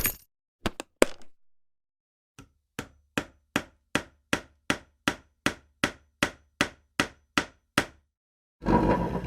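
Three sharp knocks, then a steady run of about fifteen hammer-like strikes, a little over two a second, and near the end a rough scraping noise.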